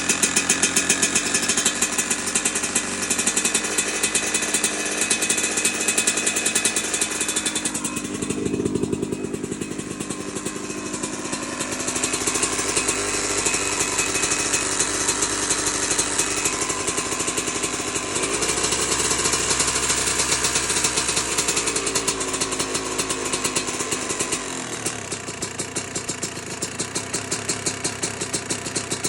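Two-stroke dirt bike engine running with a rapid firing beat. Engine speed shifts several times and settles lower and a little quieter near the end. The noise is one its owner cannot place: misfire, rod knock or piston slap.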